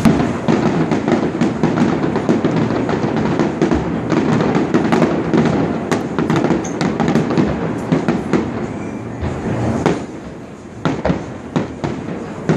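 Fireworks show: aerial shells bursting and crackling in a dense, rapid barrage. It eases off around ten seconds in, then a few separate bangs follow.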